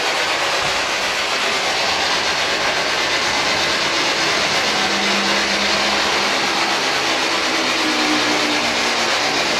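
Steady, loud static hiss from a handheld ghost-hunting radio device (spirit box) left running on the desk, with faint humming tones drifting in over the last few seconds.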